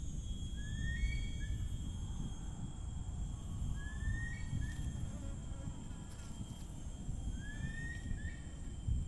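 Tropical forest ambience: insects keep up a steady high-pitched drone. A bird repeats a short rising whistle phrase three times, a few seconds apart, over a low rumble.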